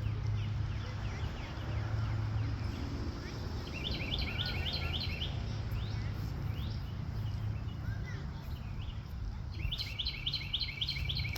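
A songbird singing twice, each song a quick run of about seven or eight repeated chirping notes, with a few softer chirps in between, over a steady low hum of background noise.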